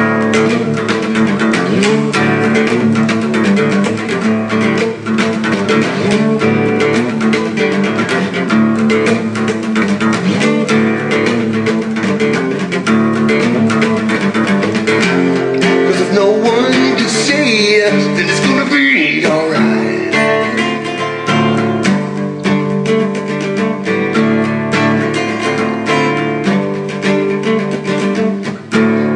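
Acoustic guitar strummed in a steady rhythm, an instrumental passage of the song without lyrics. About halfway through, a short wavering high melody rises over the chords.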